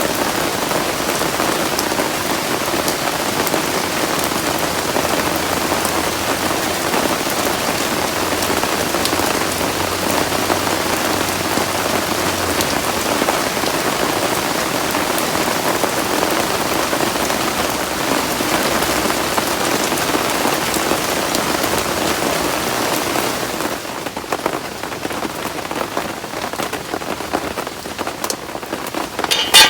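Heavy rain falling in a dense, steady downpour. It turns softer about 24 seconds in, and a single sharp click comes just before the end.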